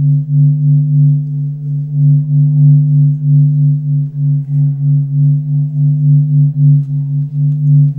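Low, steady droning tone with a few steady overtones, its loudness wavering several times a second.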